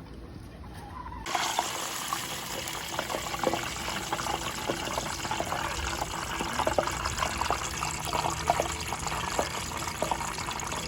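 Battered fish deep-frying in a pot of hot oil: a steady crackling sizzle full of small pops, starting abruptly about a second in.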